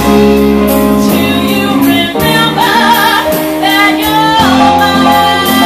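Live band playing a soul-blues rock song: a woman's lead vocal over a drum kit with cymbals keeping a steady beat, bass, keyboards and electric guitar.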